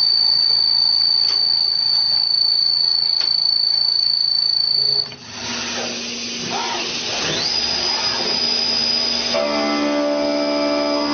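CNC machine at work on a gear, its spindle giving a steady high whine. The whine cuts off about five seconds in, then rises back up in pitch and holds steady. A lower hum with several steady tones joins near the end.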